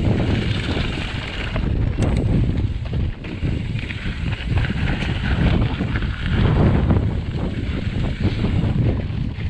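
Wind buffeting the microphone of a chest-mounted action camera as a Santa Cruz mountain bike rolls down a dry, dusty dirt trail, with a steady rumble of tyres on the dirt. A couple of sharp clicks from the bike about two and five seconds in.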